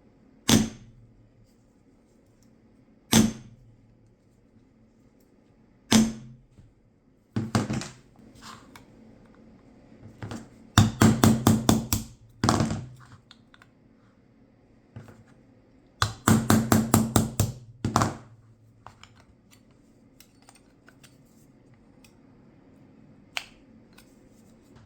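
Sharp hammer taps on metal: single blows a few seconds apart, then two quick runs of about eight rapid taps, and one faint tap near the end.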